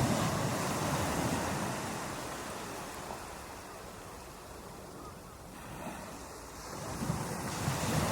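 Ocean waves breaking on a beach. The surge is loudest at the start and ebbs through the middle, then the next wave swells in from about seven seconds.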